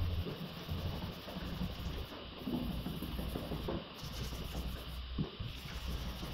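Hands rubbing and sliding over the primed, sanded hood of a car, a scattered rustling, over a steady low hum and hiss.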